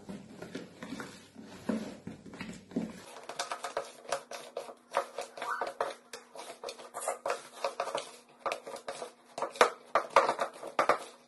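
Hands mixing flour and a liquid mixture into an early brioche dough in a glass bowl: irregular soft taps, scrapes and clicks against the glass, a few sharper ones near the end.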